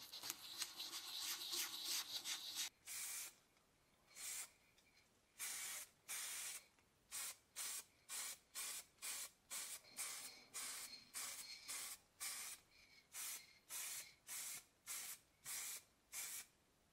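Hand-sanding of a small metal bicycle-seat part, a steady rubbing for the first couple of seconds. Then spray paint hissing on in short blasts, about twenty of them at irregular intervals, each under half a second long, as the hanging metal parts are painted.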